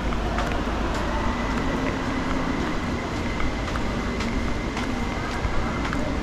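Steady outdoor urban background noise: a low rumble with a faint thin high tone running through most of it and scattered light clicks.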